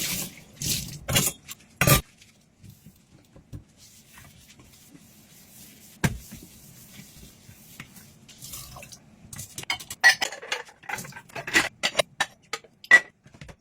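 Dishes and cutlery handled at a kitchen sink as the tap is shut off: a few clatters in the first two seconds, one sharp clink about six seconds in, then a busy run of ringing clinks and clatters of crockery and utensils over the last four seconds.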